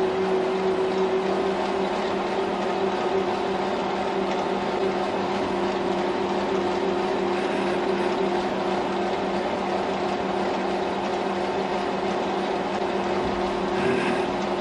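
Metal lathe running at about 400 RPM with a boring bar on power feed, boring out the bore of a metal part: a steady running sound with several held tones.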